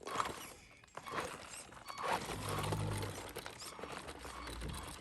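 Irregular crunching and clicking of movement over rough rocky ground, with a short low hum about two and a half seconds in.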